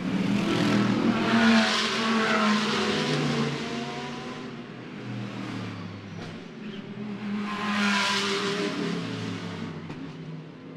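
GT3 race cars, Mercedes-AMG GT3s among them, passing at speed in two bunches. The engine notes swell to a peak about a second and a half in and again about eight seconds in, dip in between, and fade near the end.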